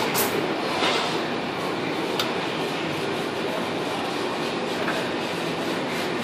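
Machines of a surface-mount PCB assembly line running: a steady mechanical rattle and hum with a few sharp clicks, the clearest about two seconds in.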